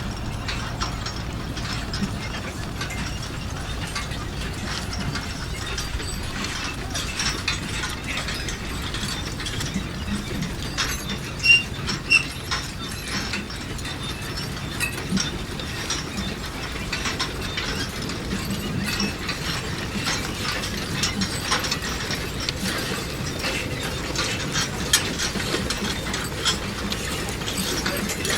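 Manure spreader running: a steady mechanical clatter and rattle over a low rumble, with a couple of louder clanks near the middle.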